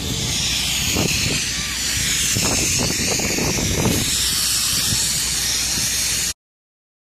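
Spray wand hissing steadily as it sprays white elastomeric roof coating, over a low rumble; the sound cuts off suddenly near the end.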